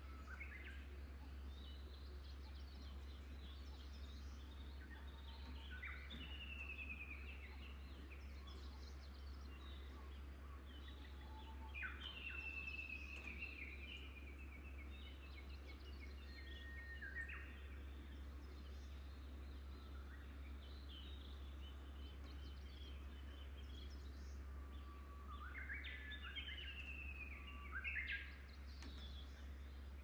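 Wild songbirds singing in the morning chorus: several birds' whistled and trilled phrases overlapping one after another, with a louder burst of song near the end. A steady low hum lies underneath.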